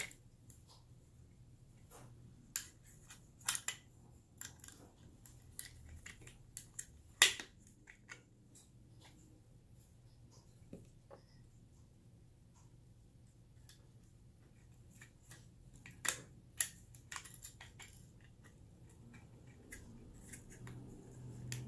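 Scattered sharp clicks and light knocks of handling: a plastic fishing-line spool being turned and fitted on a metal spooler spindle, with small metal washers and nuts picked up from a wooden tabletop. The loudest click comes about seven seconds in, with a few more about sixteen seconds in.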